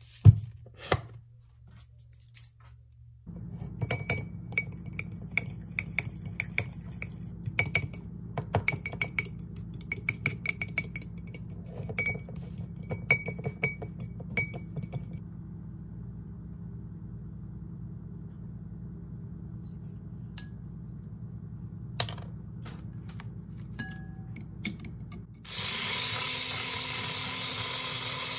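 A fork beating egg yolks in a small glass bowl, clinking rapidly against the glass for about ten seconds, then a few stray taps. Near the end an electric hand mixer starts suddenly and runs steadily, whirring as it beats egg whites in a glass mixing bowl.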